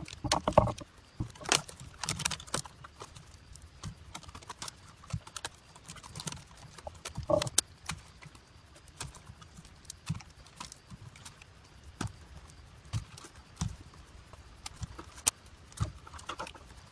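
Thin split-bamboo strips clicking, knocking and rustling against each other as they are handled and arranged in a bundle, in irregular sharp taps.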